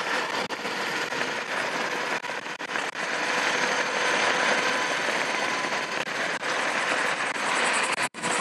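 Varla Pegasus dual-motor electric scooter at top speed on a concrete sidewalk: a steady rush of wind and tyre noise on the low-mounted action camera's microphone, with a faint steady motor whine and scattered light knocks as the small wheels cross the slab joints. The sound cuts out briefly near the end.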